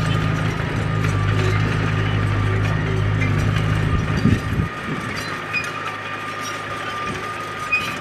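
A crawler bulldozer working: its diesel engine drones steadily under a thin high whine, with the tracks clanking and creaking. About four and a half seconds in, the engine drone drops away sharply, leaving the whine and the track clatter.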